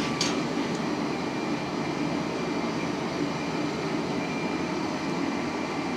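Homemade gas forge burner running with a steady, even rushing noise while it heats steel for hardening, with one brief click just after the start.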